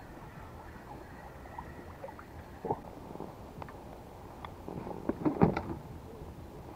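A single knock, then a cluster of knocks and thuds about five seconds in, as a hooked fish is lifted from the water and brought against the side of an inflatable boat. Under them is a steady hiss of wind on the microphone.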